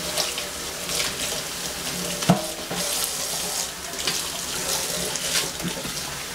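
Kitchen tap running steadily into a stainless steel sink, with one sharp knock a little over two seconds in.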